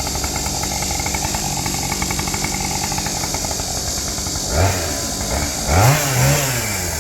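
Chainsaw engine idling steadily, then revved briefly twice, rising in pitch and dropping back.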